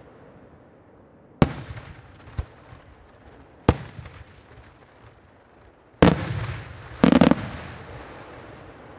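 Aerial firework shells bursting in a display: a sharp bang about a second and a half in, a smaller pop a second later, another bang near four seconds, then two heavy bursts about a second apart near the end, the second a short rapid crackle. Each bang trails off in a rolling echo.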